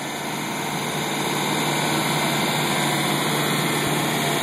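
An engine running steadily at idle, a constant low hum under an even rushing noise.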